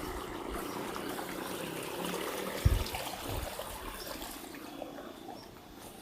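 Flowing river water running steadily, swelling a little towards the middle and then easing off, with two low thumps near the middle, the first of them the loudest.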